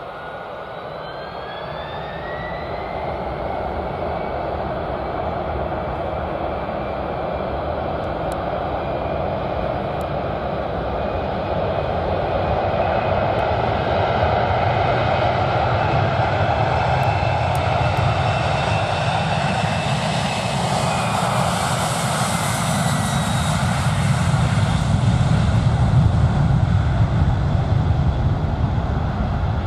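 Twin-engine jet airliner taking off: the engines spool up to takeoff power with a whine rising in pitch over the first few seconds, then a broad roar that grows steadily louder through the takeoff roll, with a deep rumble building near the end as the jet lifts off.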